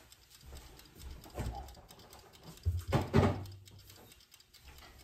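Faint handling sounds from someone moving about a kitchen off camera: a few soft knocks and rustles, the loudest about three seconds in.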